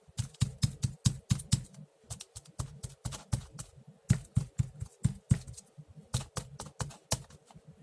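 Ink sponge pounced back and forth between an ink pad and paper through a stencil: rapid, uneven light taps, several a second.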